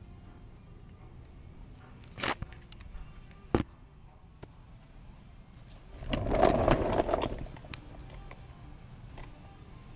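A plastic toy garbage truck is handled and rolled along a concrete path: two sharp clicks, then a rough scraping rumble lasting about a second.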